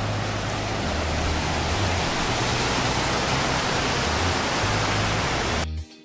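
Water rushing steadily over rocks and a low concrete weir, with the low bass notes of background music underneath. The water sound cuts off suddenly near the end, leaving the music.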